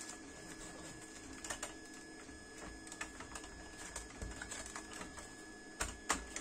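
Crumpled newspaper wrapping crinkling and rustling as it is pulled off a model car by hand, with a few sharper crackles near the end.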